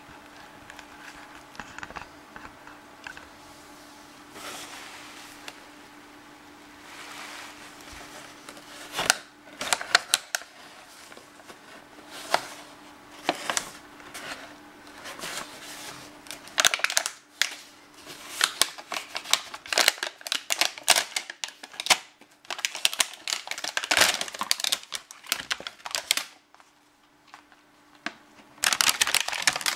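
Crinkling and crackling of a clear plastic blister pack being handled and pulled open by hand, in irregular sharp bursts that grow louder and busier after the first several seconds.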